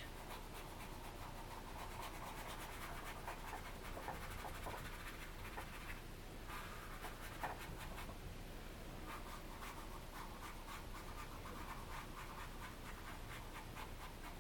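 Faint, quick scratchy strokes of a colouring or drawing tool working over a surface, as shading is gone over in short back-and-forth marks.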